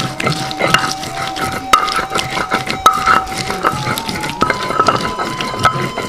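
Stone pestle scraping and knocking back and forth on a flat stone grinding slab, crushing shallots, garlic, turmeric and candlenuts into a wet spice paste. The strokes are rhythmic, about three a second.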